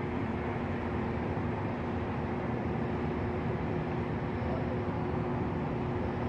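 Steady drone of construction-site machinery running, an even engine-like hum with no knocks or bangs.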